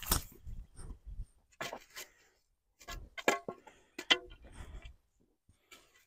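Wooden tomato stakes knocking together and being set down on the soil: a scattered run of sharp wooden clacks, the loudest two about three and four seconds in, with dull handling thuds.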